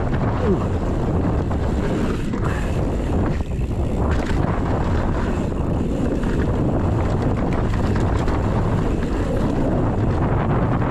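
Wind buffeting the camera microphone on a mountain bike descending at speed, over a steady rumble of tyres rolling on a dirt trail. The noise dips briefly about three and a half seconds in.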